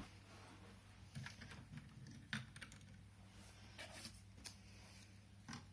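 Faint, scattered light clicks and taps of plastic Lego pieces being handled, over a steady low hum.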